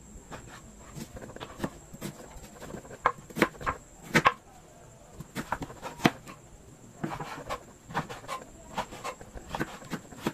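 Irregular clicks and knocks of kitchen utensils being handled, well over a dozen sharp strikes spaced unevenly, the loudest about four seconds in.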